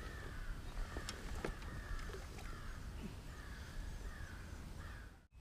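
A bird calling over and over in short harsh notes, about one to two calls a second, with a few faint clicks from handling. The sound drops out for an instant near the end.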